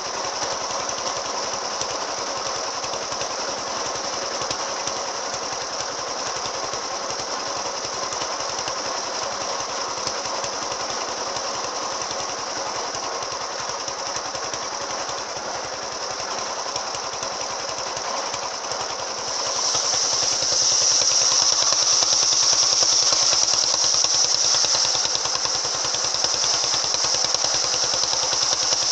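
Engine-driven circular sawmill (serkel) running with an AKM saw blade: a steady engine chug with a rapid pulse underneath and a high whine on top. About two-thirds of the way through, it grows louder and the high whine strengthens.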